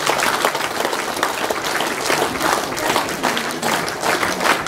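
Audience applauding: a steady patter of many hands clapping at once.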